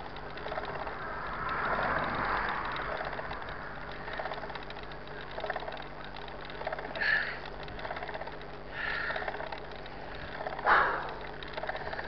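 Mountain bike rolling along asphalt: steady tyre and wind noise with a light drivetrain rattle. A car passes about two seconds in, and several short sharp sounds come in the second half.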